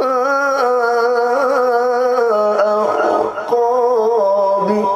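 A man's voice in melodic Qur'an recitation, holding a long vowel and ornamenting it with a wavering pitch that steps down partway through. There is a rough, strained stretch near the middle; the reciter's voice is affected by a heavy cough.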